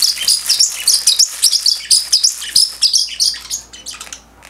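Pacific parrotlet chirping rapidly, a fast run of short high chirps that thins out and stops about three and a half seconds in.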